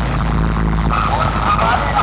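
Loud DJ remix music played through a competition sound system's speaker boxes, with a heavy held bass note under a sliding melodic line.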